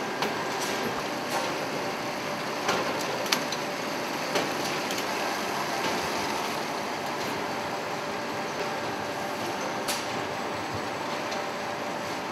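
Steady mechanical noise of a forge shop's furnaces and machinery, with a faint hum, broken by a few sharp metallic clanks, most of them in the first half.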